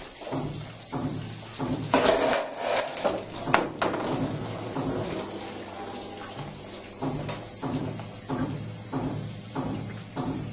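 A homemade chain-reaction machine running: a loud rushing noise with sharp knocks about two seconds in, lasting roughly two seconds, then a string of shorter, softer knocks and rustles.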